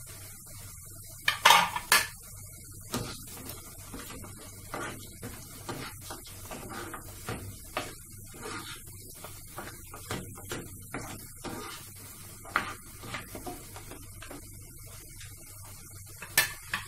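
Spatula stirring and scraping a thick tomato-onion spice mixture in a nonstick frying pan, with frequent short scrapes and clicks. Sharper knocks against the pan come about a second and a half in and again near the end.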